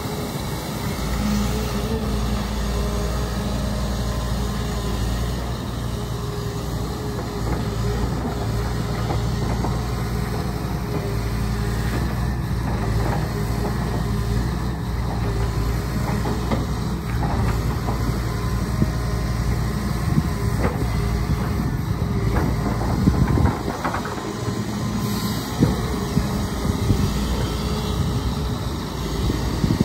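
Diesel engine of a hydraulic excavator running steadily under load, with scattered metallic knocks and clanks from the machine at work, most of them in the second half.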